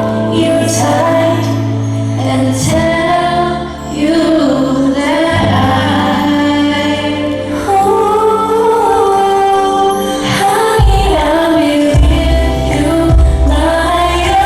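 A woman singing a slow pop song live over amplified backing music, with long held notes over a steady bass line.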